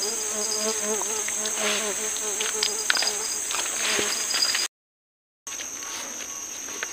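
Steady high-pitched insect chorus droning in the riverside forest, with a few small clicks over it. The sound cuts out completely for a moment about two-thirds through, then carries on slightly quieter.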